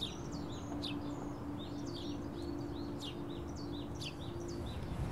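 Several small birds chirping outdoors, short quick high notes repeating throughout, over a faint steady hum that stops shortly before the end.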